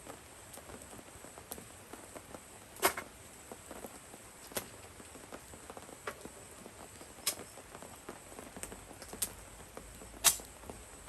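Rain dripping: scattered drops tapping irregularly on a surface over a soft, steady patter, with about five heavier drops landing as sharper, louder taps.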